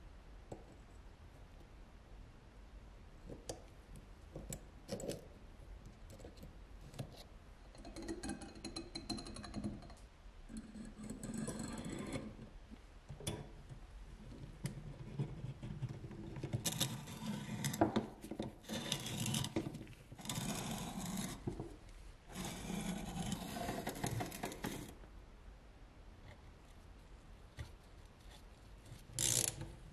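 Workshop handling sounds: small clicks, then stretches of scraping and rattling as small metal parts and hand tools are worked.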